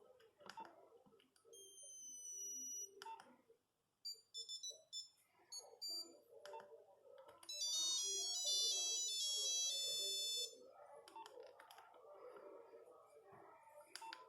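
Nokia 8210 playing its monophonic ringtones: a high tone sliding down in pitch, then a run of short beeps, then about three seconds of a fast beeping melody, the loudest part, with a few soft clicks between them.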